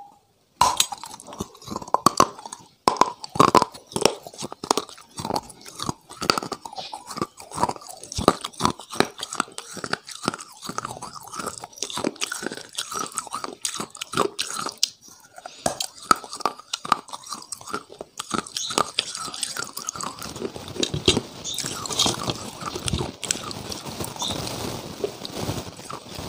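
Close-miked biting and crunching of brittle, chalky white pieces, with many sharp crisp cracks. Near the end it turns to softer, denser chewing.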